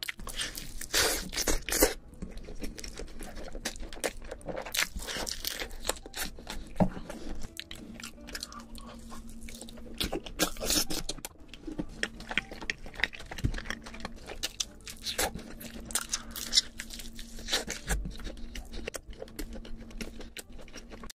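Close-miked crunching and chewing of fried chicken drumsticks: crisp bites into the coating, loudest about a second in, then irregular crunches and wet chewing.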